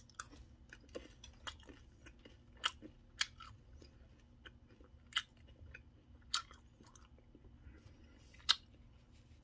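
A person chewing a mouthful of mustard-coated Skittles candies: faint, wet chewing broken by irregular sharp clicks and crunches every second or two.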